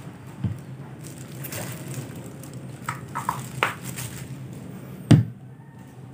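Handling of a plastic shoe-cleaner bottle: a few light clicks and taps, then one solid knock about five seconds in as the bottle is set down on a cutting mat.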